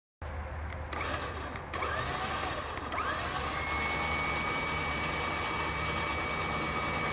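Electric 9,500 lb winch motor running, reeling in cable to take up the slack until the line is tight. It starts in short pulls, each spinning up with a rising whine, then runs steadily with a high whine from about three seconds in.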